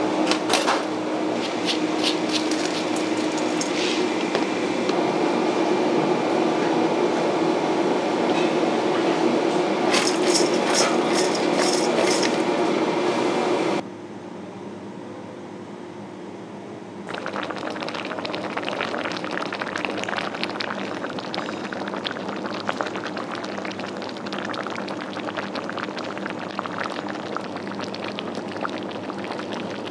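Metal spoon clinking against a steel mixing bowl in two short bursts while fried fish is tossed with scallions and chili, over a steady kitchen hum. After a brief quieter stretch, a hotpot of mullet rice-noodle soup bubbles and crackles at a boil on a portable gas stove.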